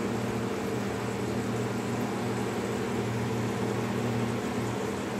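A steady electrical hum with a few low tones held level over a constant hiss, like a small motor running.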